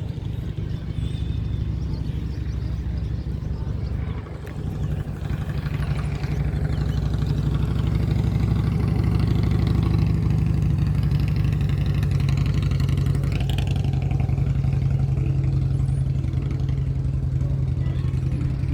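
An engine running steadily with a low hum, growing somewhat louder about six seconds in.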